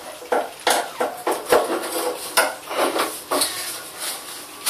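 A screwdriver tip scraping and clicking in the plastic seal groove of a car headlamp housing as the old rubber seal is picked out: a string of short, irregular scrapes and clicks, roughly two a second.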